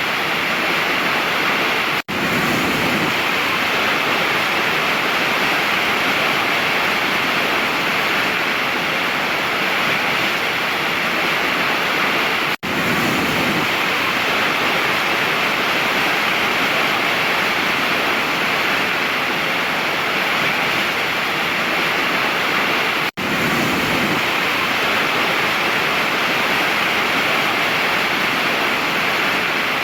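Waterfall rushing steadily, a dense hiss of falling water, with a split-second gap three times, about every ten seconds.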